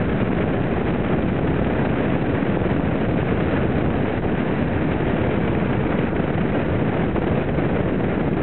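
Steady rush of wind on the microphone of a Triumph Tiger 800 XCx riding at road speed, blended with the motorcycle's running engine.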